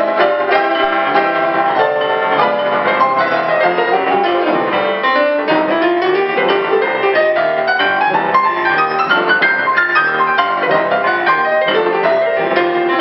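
Piano duet played on an upright acoustic piano and a Yamaha digital piano at the same time, with dense chords and a run of notes climbing for about three seconds in the middle.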